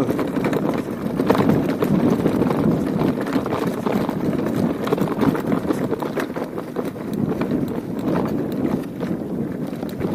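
Mountain bike rolling over a rough cobbled stone track: tyres on loose rock and the frame, chain and parts rattling, a constant clatter of small knocks.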